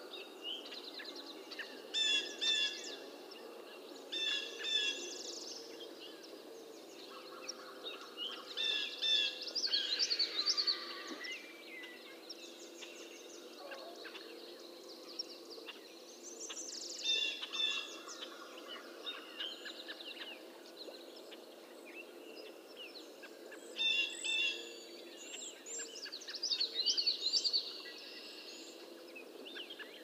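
Songbirds singing short, repeated chirping phrases every few seconds, over a steady low drone of background sound.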